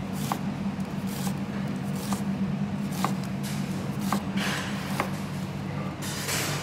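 Chef's knife slicing an onion on a plastic chopping board, the blade knocking on the board about once a second, over a steady low hum.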